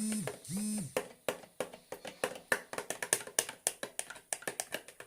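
A child hums two short notes. Then comes a run of sharp, irregular clicks and taps, several a second, as a homemade slime mixture is stirred in a container.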